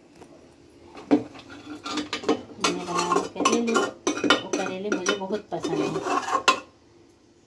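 A metal spoon scraping and clinking against the inside of an aluminium pressure cooker, scooping out thick cooked curry. The scraping starts about a second in and stops shortly before the end.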